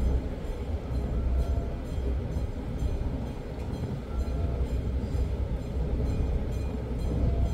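Steady low rumble of a ship's engines and machinery, heard on deck.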